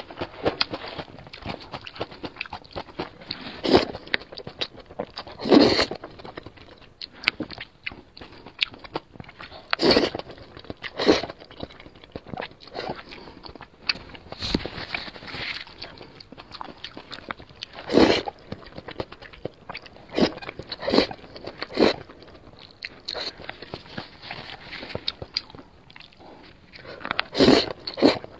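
Close-miked eating of hot dry noodles with blistered green peppers: steady chewing and biting with irregular sharp mouth sounds, several of them much louder than the rest.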